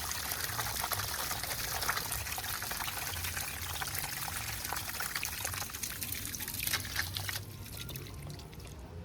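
Water rushing and splashing out of a water supply main under mains pressure, then cutting off sharply about seven seconds in as the supply valve is closed.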